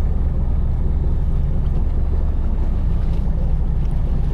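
Fishing boat's engine running with a steady low hum, with wind buffeting the microphone.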